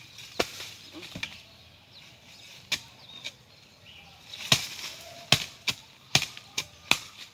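A series of about eight sharp, irregularly spaced knocks, the loudest coming in the second half.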